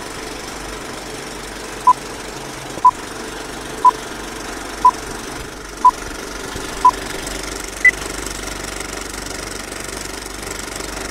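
Old-film countdown leader sound effect: a steady film-projector clatter with hiss, under short beeps once a second. There are six beeps at one pitch, then a seventh at a higher pitch.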